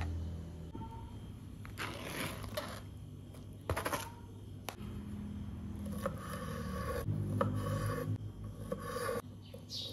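Raw peeled shrimp slid off a flexible plastic mat onto a wooden cutting board, followed by a kitchen knife scraping and knocking on the board as the shrimp are cut. The sound comes as irregular scrapes and a few sharp clicks, then repeated short strokes through the second half.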